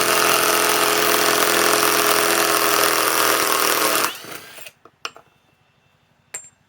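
Hercules Gen 2 compact 1/2-inch cordless impact wrench running continuously as it backs a 2 3/4-inch lag screw out of wood, then stopping abruptly about four seconds in. A couple of short faint clicks follow.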